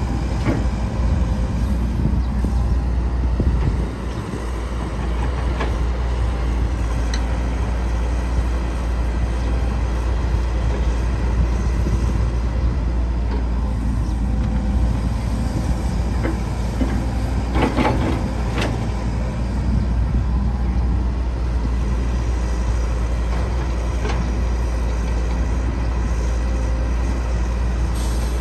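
Caterpillar 312C hydraulic excavator's diesel engine running steadily while working. A few short clatters stand out over it, the loudest about 18 seconds in.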